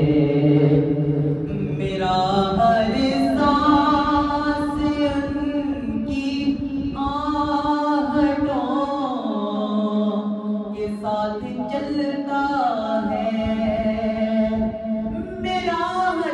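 A young man singing a naat, an Urdu devotional song, into a handheld microphone, drawing out long held notes that glide and waver between pitches.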